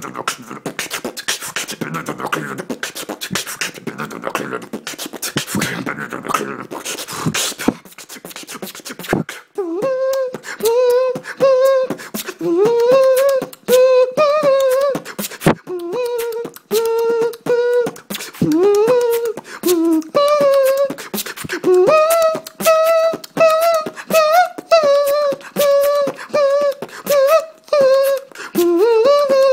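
Solo human beatboxing: fast mouth-made clicks, kicks and hissy snares for about the first nine seconds, then a hummed melody line carried over the beat, with percussive clicks between the notes.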